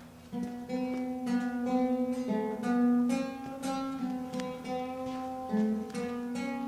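Acoustic guitar being picked, a run of single plucked notes ringing over a held low note.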